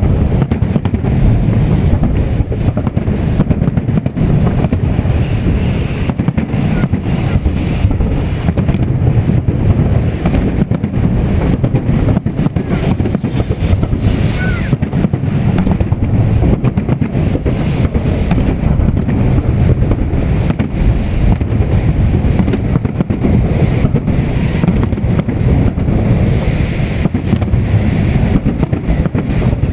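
Wind rumbling against the microphone, a loud steady low roar with gusty buffeting.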